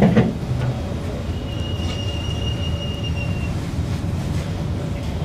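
MRT train carriage heard from inside, wheels running on the rails with a steady low rumble. A short knock comes right at the start, and a thin, high, steady wheel squeal sounds for about two seconds near the middle.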